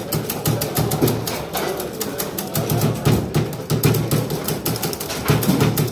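Foosball table in play: rapid, irregular clacks and knocks of the ball striking the plastic figures and the table walls, with rods clattering, over background music.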